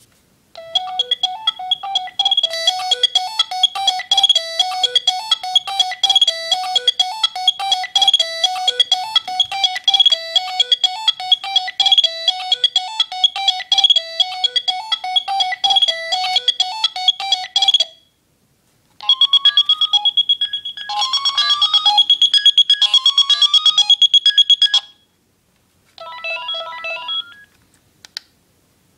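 Philips Fisio 625 mobile phone playing its built-in ringtones one after another: a fast, beeping electronic melody for about seventeen seconds, then after a short break a second tune with quick rising runs of notes for about six seconds, then a short third tune near the end.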